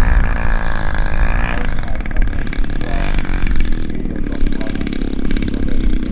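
Propeller-driven large-scale model airplane's engine running throttled back as it lands. Its pitch slides down in the first second or so, then it settles into a steady low run.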